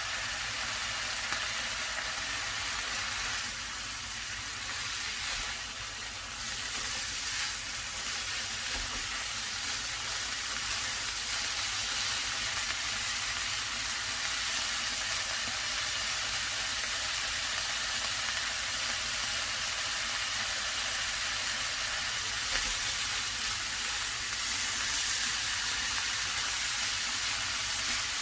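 Seasoned bracken fern (gosari) sizzling steadily in a pan as it is stir-fried in perilla oil and soy sauce over a medium gas flame.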